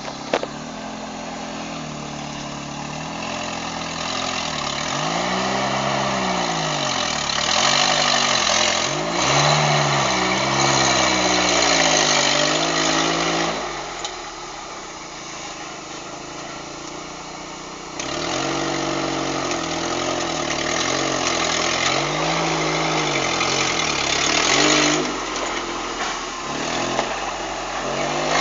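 Off-road 4x4's engine revving up and down again and again as the vehicle crawls out over rocks, easing off to a lower, quieter run for a few seconds about halfway through.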